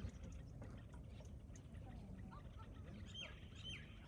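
Faint outdoor ambience with a low steady rumble, and a few faint bird chirps near the end.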